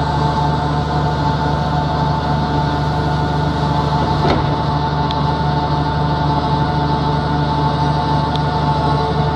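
Landini 19500 tractor engine running steadily, with the machinery of an Omas California mixer wagon as it is loaded with feed, giving a constant hum and whine. There is one short knock about four seconds in.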